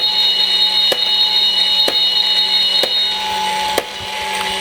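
Takara Tomy toy railroad crossing set (Plarail and Tomica 'Kankan' level crossing) playing its electronic warning sound: steady high beeping tones with a sharp click about once a second. About three seconds in the high tones stop and a lower steady tone carries on.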